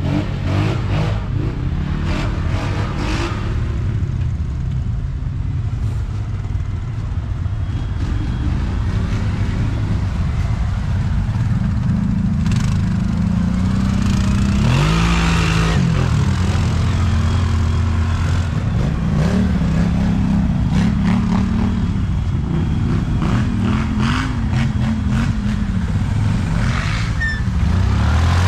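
ATV quad engine running hard and revving, its pitch rising and falling again and again as the throttle opens and closes.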